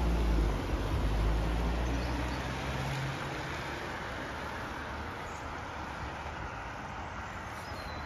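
A car engine running as the car moves off down the street, its low hum fading away over the first four seconds and leaving a steady, quieter street background.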